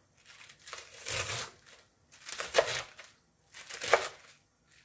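Chef's knife slicing through napa cabbage leaves on a wooden cutting board: about three slow strokes, each a crisp crunch of the leaves ending in a tap of the blade on the board.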